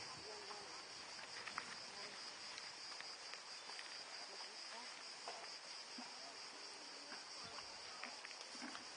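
A steady, high-pitched insect chorus, with a few faint scattered clicks.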